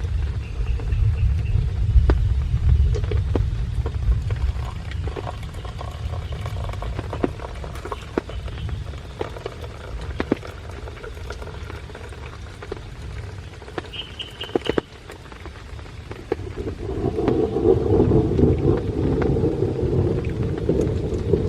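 Low thunder rolling over rain, fading away over the first several seconds while scattered raindrops tap nearby. A second roll of thunder builds near the end.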